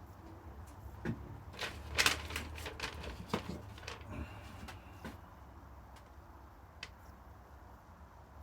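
A run of light knocks and clicks from wood pieces and tools being handled on a workbench, busiest in the middle, with a last click near the end.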